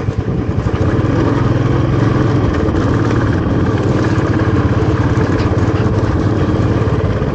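Royal Enfield Classic 350's single-cylinder engine running steadily under way, with an even, pulsing beat at a constant pitch.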